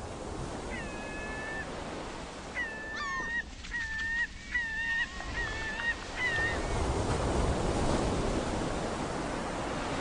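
A steady rushing noise that grows louder toward the end, with animal calls over it: one long, high, level-pitched call about a second in, then a run of about six short calls.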